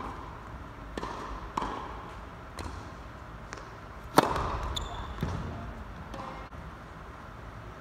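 A tennis ball bounced a few times on an indoor hard court before a serve, then the sharp crack of the racket striking the serve about four seconds in, dying away with a hall echo. A couple of fainter ball impacts follow.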